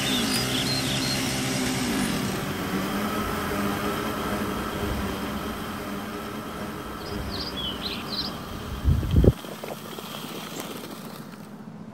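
A petrol string trimmer's engine runs loudly for the first couple of seconds, then fades into a quieter steady hum. A few bird chirps come about seven to eight seconds in, and a brief low thump about nine seconds in.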